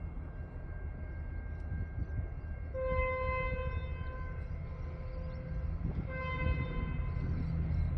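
Approaching diesel freight train: a steady low rumble that slowly grows louder, with two blasts of the locomotive horn. The first comes about three seconds in and lasts nearly two seconds; the second, shorter, comes about six seconds in.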